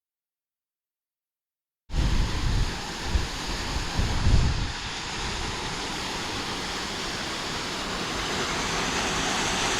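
Silent for about the first two seconds, then the steady rush of a waterfall cuts in, with wind buffeting the microphone twice in the next few seconds. The rushing grows slightly louder near the end.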